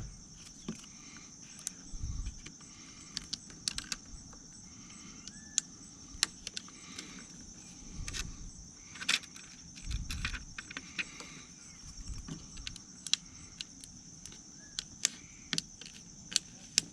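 Hands working a screen protector film onto a Harley-Davidson Boom Box radio screen: many small irregular clicks and taps, with a few soft thumps, over a steady high-pitched tone.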